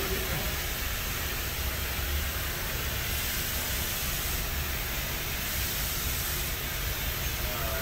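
Steady workshop background noise: an even hiss with a low rumble underneath.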